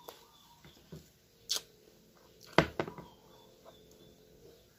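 Close-up chewing of crisp unripe green mango: a few scattered sharp crunches and mouth clicks. About two and a half seconds in comes a louder, duller knock with a couple of smaller ones after it, from something handled on the table.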